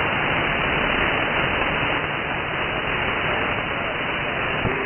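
Steady static hiss from a CB radio receiver on an open channel with no station transmitting.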